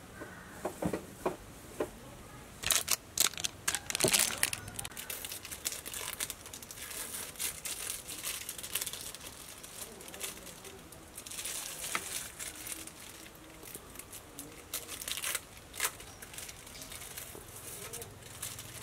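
Thin plastic wrapper crinkling and crackling in the hands as individually wrapped cheese slices are unwrapped. The crackles come in clusters, loudest about three to four seconds in and again near the end, with softer rustling between.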